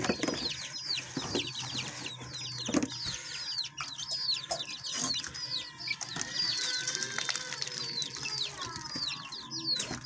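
A crowd of chicks cheeping nonstop: quick, high, downward-sliding peeps from many birds at once, several a second. A few short knocks sound near the start and about three seconds in.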